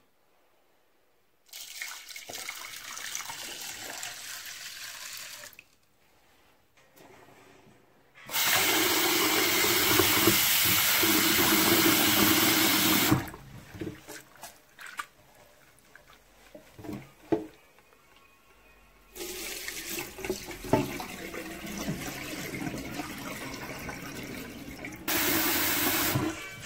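Kitchen tap running into a bowl of split peas in a stainless steel sink, in several spells, the loudest lasting about five seconds mid-way. In between, a hand swishes and rubs the peas in the water with small splashes.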